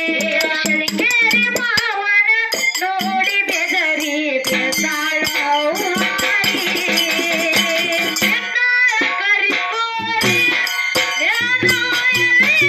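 Kannada dollina pada folk song: a singer's voice over small hand cymbals struck in a steady rhythm.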